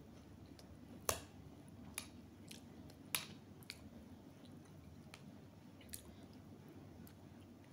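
A person eating rice and stew from a metal spoon: quiet chewing, with about six sharp clicks of the spoon, the loudest about a second in and just after three seconds in.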